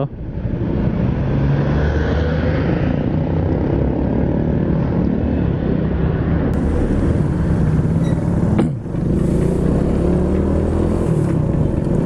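Motorcycle being ridden, with wind rushing over the microphone on top of the engine's hum. About three-quarters through the sound briefly drops away, then the engine note climbs as the bike picks up speed again.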